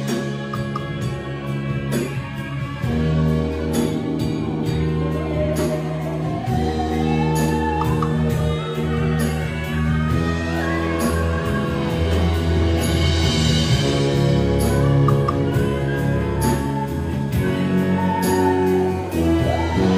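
Live orchestra of strings, brass and percussion playing a slow piece, with a woman singing into a microphone over it. Cymbal swells rise twice, about two-thirds of the way through and again at the end.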